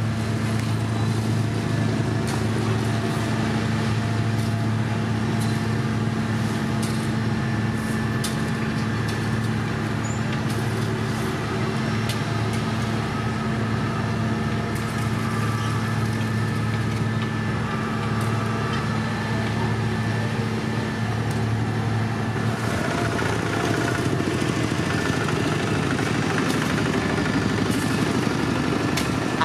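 Heavy diesel engines of gravel dump trucks running with a steady low hum. About 23 seconds in the hum gives way to a rougher, noisier engine sound as the road-building machinery works.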